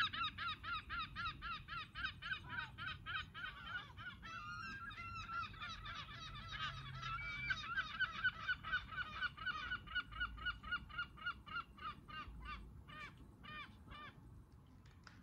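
A small bird calling in a rapid, even series of short, high chirps, about four a second, fading out near the end.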